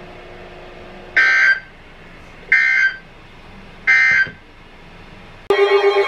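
Emergency Alert System end-of-message data bursts: three short buzzy digital squawks about a second apart, signalling the end of the alert. About half a second before the end, loud music with wavering siren-like tones cuts in.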